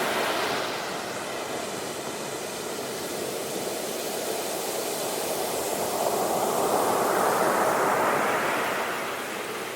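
Ocean surf: foamy waves breaking and washing up the shore in a continuous rush that builds to a peak about seven seconds in and then eases off.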